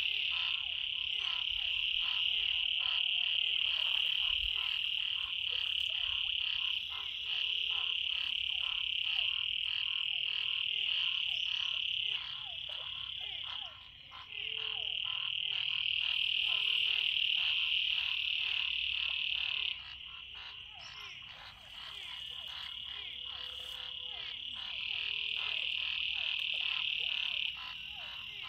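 A chorus of frogs calls from floodwater after heavy rain. A dense, high trill runs for several seconds, breaks off and starts again, over many rapid, overlapping short calls.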